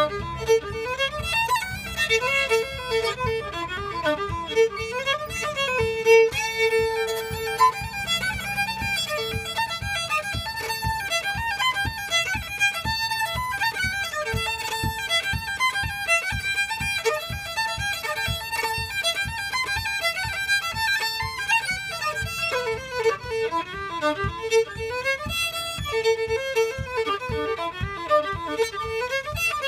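Solo fiddle playing an Irish reel: fast runs of bowed notes at a steady pace, with a few longer held notes.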